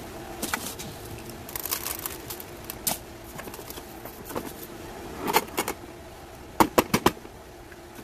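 Gritty potting soil crunching and scraping as it is pressed into a small ceramic pot around a succulent, with metal tweezers clicking against the pot and soil. A quick run of four sharp clicks comes about two-thirds of the way in and is the loudest part, over a low steady hum.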